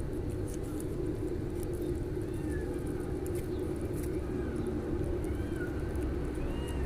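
Cats meowing faintly and repeatedly, short rising-and-falling calls, over a steady low rumble like passing traffic or a running engine.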